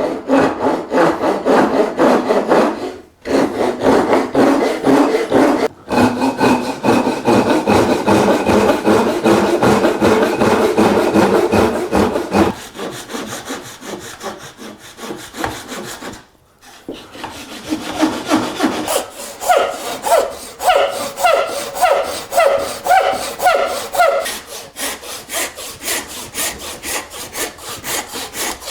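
Hand saws cutting wood with quick, even back-and-forth strokes, stopping briefly a few times, with a longer break about halfway through. A Japanese pull saw and a Western saw are each used for one cut, and the blade rings in pitch during some stretches of strokes.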